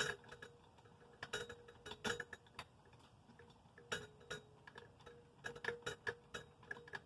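Irregular light clicks and metallic clinks, some in quick clusters, as the blades and their screws are handled and taken off a ceiling fan.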